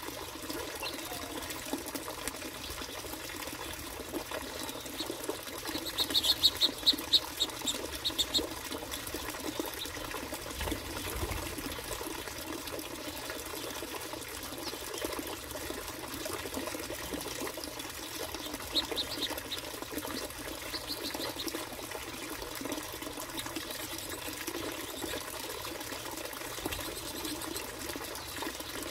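Finches chirping over a steady trickle of water: a quick run of about ten high chirps some six seconds in, the loudest sound here, then two shorter bursts later on.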